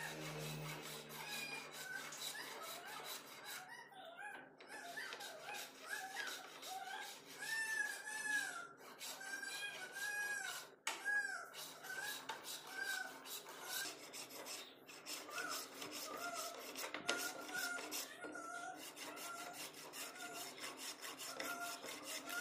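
A plane shaving a wooden batten, pushed back and forth along the wood in quick repeated strokes.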